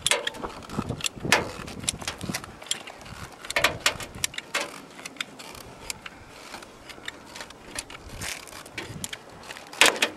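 Hand caulking gun clicking at irregular intervals as its trigger is squeezed, pushing roof tar out of the tube in a bead. One louder click comes near the end.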